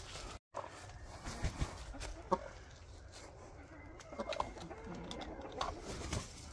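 Penned domestic fowl clucking softly, with short calls scattered through.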